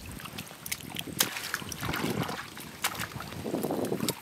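Hands sloshing and splashing in shallow muddy water, with irregular bursts and scattered sharp clicks as they dig into the mud.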